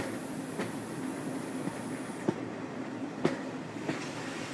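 Railway carriage wheels running on the rails with a steady rumble and four sharp clicks over rail joints at uneven spacing, the loudest a little over three seconds in. A faint high hiss cuts off about two seconds in.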